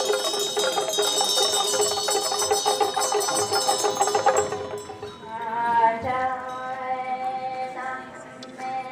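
Tibetan Buddhist cham ritual music: metal cymbals clash and ring for the first four seconds or so over long held melody tones. After about five seconds the cymbals stop and the held pitched melody carries on alone, rising and falling.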